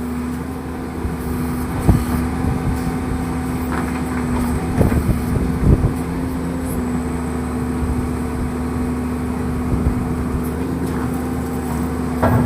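Horizontal directional drilling rig's engine running steadily with a constant hum, with a few sharp knocks about 2, 5 and 6 seconds in.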